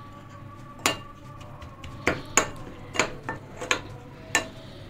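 Metal spoon clinking against a glass bowl while stirring a spice and yogurt paste: about half a dozen sharp, irregularly spaced clinks, the first about a second in.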